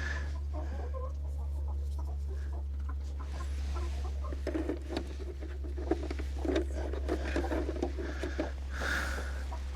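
Domestic hens clucking in the coop, a scatter of short clucks that comes thicker from about four and a half seconds in.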